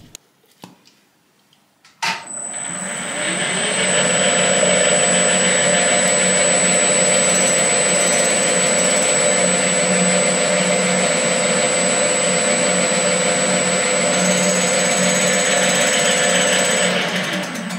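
A machine-tool spindle motor starts about two seconds in, runs up in pitch to speed and runs steadily with a constant high whine, turning a tap in the chuck in a hole in 304 stainless steel; it begins to run down just before the end.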